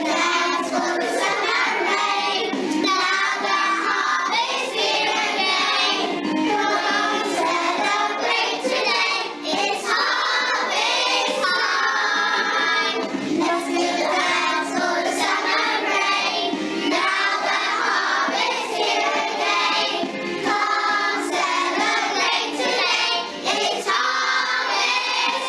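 A choir of young children singing a song with musical accompaniment.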